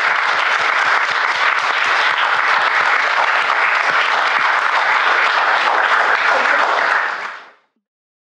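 Audience applauding: dense clapping from a roomful of people, fading out near the end.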